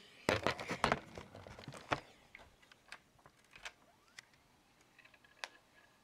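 Plastic clicks and knocks of an NEC Versa laptop being handled and opened. There is a quick flurry in the first two seconds, then scattered single clicks, with a sharper click about five and a half seconds in.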